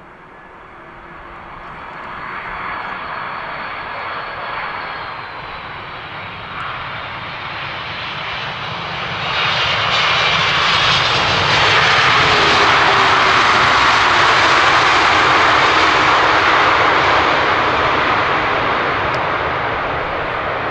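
Wide-body jet airliner on final approach passing low, its engine noise building from faint to a loud steady rush with a thin high whine early on, easing slightly near the end.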